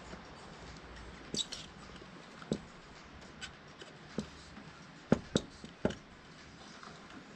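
Hands handling a leather shoe and working its laces: scattered light taps and clicks, with three sharper knocks a little past halfway.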